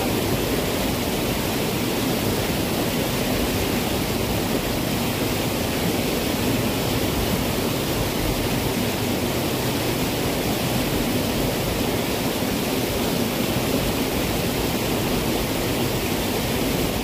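Fast-flowing floodwater rushing steadily through a narrow irrigation ditch, a constant even rush with no breaks.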